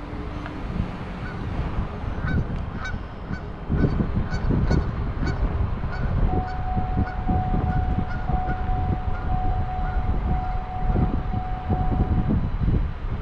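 Geese honking in a quick series of calls over a low rumble of wind on the microphone. A faint steady tone holds for about six seconds in the second half.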